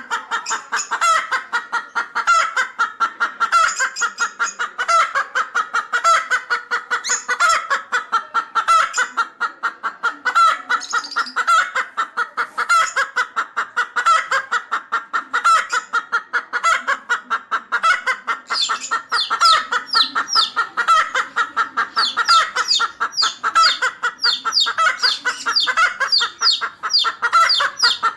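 Chickens clucking in a rapid, unbroken series of short calls. About two thirds of the way in, quick high-pitched chirps join the clucking.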